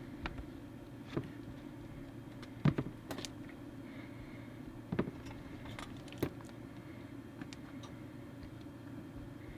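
Scattered light clicks and taps of small hand tools and cable connector parts being handled on a workbench, the sharpest a little under three seconds in and about five seconds in, over a steady low hum.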